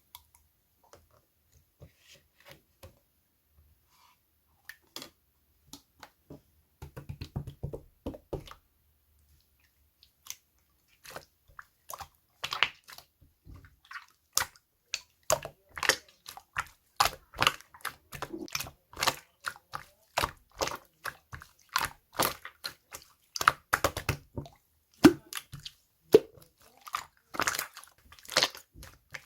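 Gold-pearl slime being squished and kneaded by hand, giving a run of wet clicks and pops: sparse and faint at first, then coming thick and louder from about ten seconds in.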